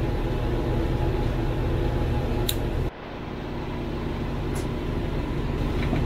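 Steady machinery hum with several held tones. It drops suddenly about three seconds in, then slowly comes back up, with a couple of faint clicks.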